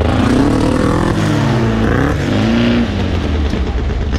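Sand rail engine heard from on board, revving up and down as the throttle changes, its pitch falling, then climbing, then easing off about three seconds in.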